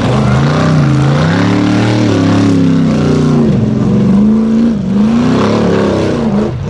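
Formula Offroad buggy's engine revving hard under load as it climbs a steep, loose dirt hill, its pitch rising and falling several times as the throttle is worked, with a brief dip about three and a half seconds in.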